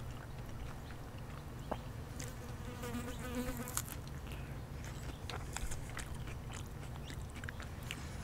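Close-miked biting and chewing of a soft tortilla taco bowl filled with beef, iceberg lettuce and salsa, with scattered crisp crunches from the lettuce. A short buzzing hum is heard about three seconds in.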